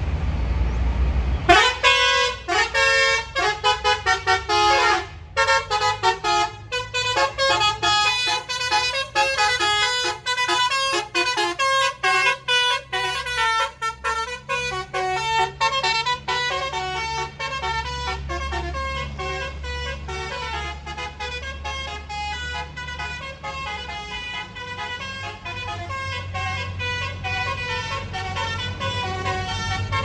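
Bus's roof-mounted Basuri telolet horn playing a fast tune of quickly changing notes, starting about a second and a half in, over the low rumble of the bus engine.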